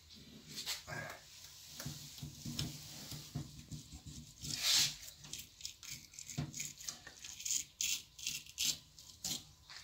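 Kitchen knife cutting a galjoen's fillet away from the bone in many short sawing strokes, with one louder scrape about halfway through.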